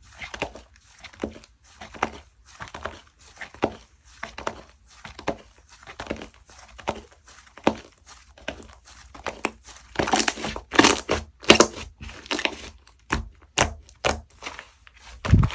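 Slime mixed with clay being squeezed and pressed by hand, giving short crackly, squishy pops about once or twice a second. The pops get louder and come closer together around ten seconds in.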